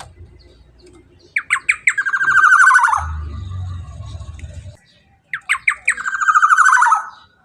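Black-naped oriole (kepodang) calling loudly twice, each phrase a few sharp notes running into a buzzy trill that falls in pitch. A low rumble sits under the gap after the first phrase.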